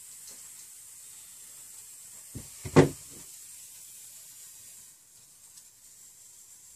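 A short clatter of a metal hand tool knocked down on the workbench, a few quick knocks with one loud clack about three seconds in, over a steady faint hiss.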